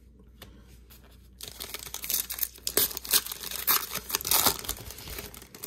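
A foil wrapper on a 2021 Donruss Optic baseball card pack being torn open by hand, crinkling and crackling. It starts about a second and a half in, after a few faint clicks, and runs as a dense rustle until it stops just before the end.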